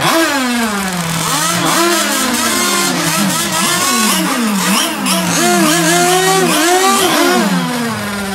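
Small two-stroke gasoline engine of a radio-controlled model boat idling at a steady pitch while its throttle is blipped over and over, the pitch jumping up and falling back each time.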